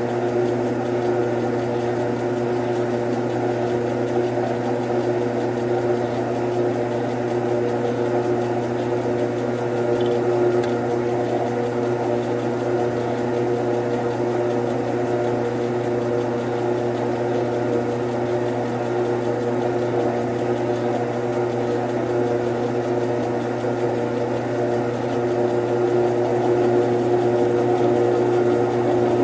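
Grizzly G9972Z metal lathe running steadily for thread cutting: a constant motor hum with a gear whine, getting a little louder near the end.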